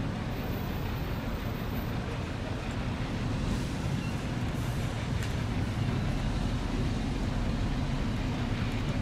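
Steady low rumble of city street traffic, with no distinct single vehicle standing out.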